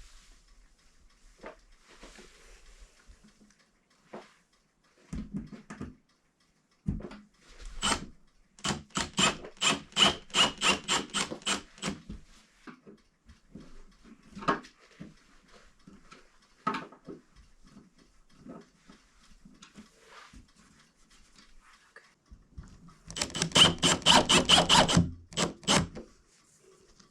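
Hinge screws being driven into a wooden bi-fold door with a screwdriver. Scattered knocks, then two runs of rapid clicking, one about eight seconds in at roughly four clicks a second and a denser, louder one near the end.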